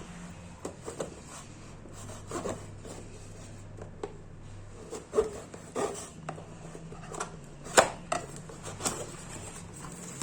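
Packaging of a gaming keyboard being opened and handled: rubbing and scraping with irregular knocks and taps, the sharpest knock near the end.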